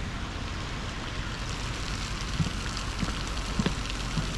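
Steady hiss of water, like rain or a running stream, with a few soft low thumps in the second half.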